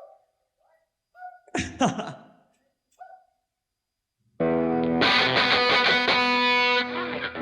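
A few short, quiet sounds, then about four and a half seconds in a distorted electric guitar played through an effects-laden amp comes in suddenly and loudly and keeps ringing, dipping briefly near the end.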